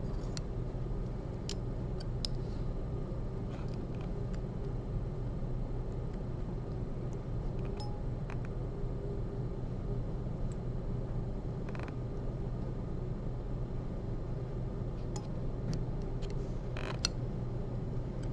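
Steady low room hum, with a few faint scattered clicks of metal surgical instruments (needle holder and forceps) handling suture on a plastic heart model.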